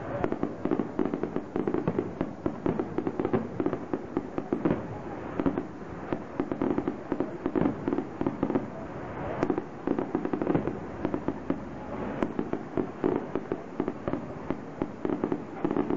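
Aerial firework shells in a finale barrage: a dense, continuous run of bursts and crackling, many bangs a second, without a break.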